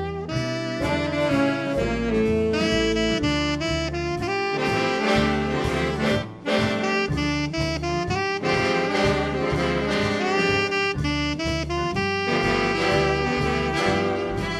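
Background jazz music with a saxophone lead and brass, over a steady bass line.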